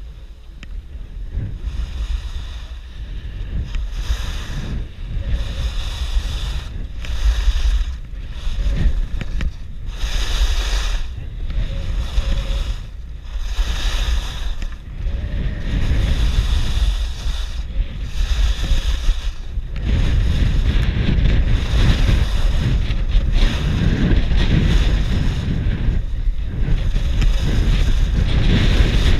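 Wind buffeting an action camera's microphone during a downhill ski run, with a low rumble, and skis hissing and scraping over groomed snow in swells a second or two apart. It grows louder about two-thirds of the way through.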